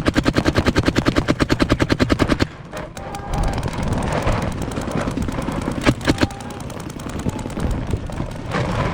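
Toy airsoft-style blaster firing full-auto at about a dozen shots a second for the first two and a half seconds. A few single shots follow around three and six seconds in, and another rapid burst starts near the end.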